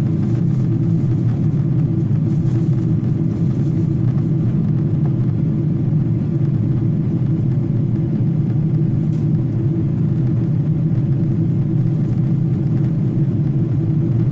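Steady low rumble that holds an even level throughout, with no rise or fall.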